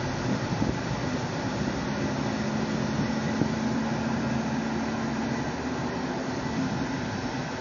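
Volvo V70's air-conditioning evaporator howling after the engine is switched off: a steady rushing noise, with a low steady tone from about a second in until a little past halfway. The howl followed a re-gas with 790 g of refrigerant, which the owner suspects has over-charged the system.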